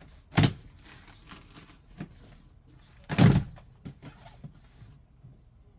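Cardboard of a large e-bike shipping box being pulled open and folded back: two loud cardboard bumps, a short one under a second in and a longer one about three seconds in, with a few lighter knocks between.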